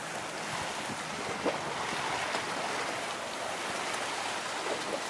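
Steady rush of breaking waves and surf with wind buffeting the microphone, and one short knock about one and a half seconds in.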